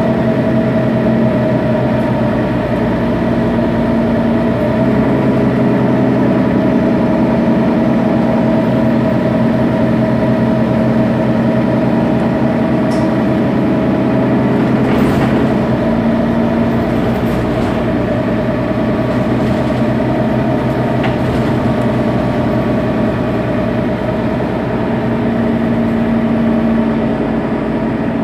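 Mercedes-Benz Citaro city bus's OM 457 hLA straight-six diesel idling steadily while the bus stands at a stop, heard close behind the rear-mounted engine.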